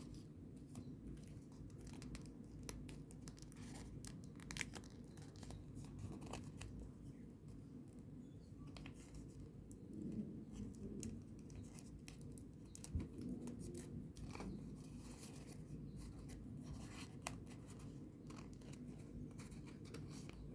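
Folded paper origami units being handled and pushed into each other's pockets: faint rustling with scattered small clicks and crackles, over a low steady background hum.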